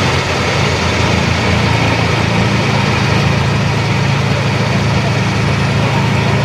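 Volvo 360 excavator with a Daedong telescopic vibro hammer attachment running steadily: a loud, even low hum under a mechanical clatter, a little louder after about a second and a half.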